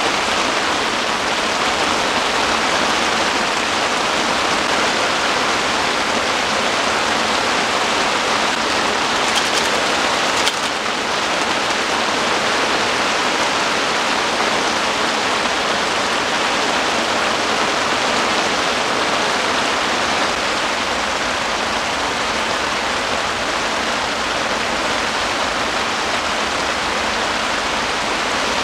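Heavy rain drumming steadily on tent fabric, an even hiss that doesn't let up. A couple of faint clicks come about ten seconds in.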